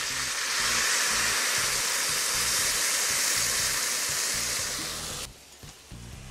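Water poured from a bottle into a cast-iron kazan of hot oil with fried chicken and potatoes, hissing and sizzling loudly as it flashes to steam. The hiss cuts off suddenly about five seconds in.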